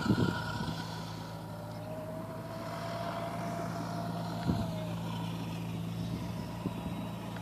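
Small ATV engine running at a steady, even speed, with a couple of brief knocks, one at the start and one about four and a half seconds in.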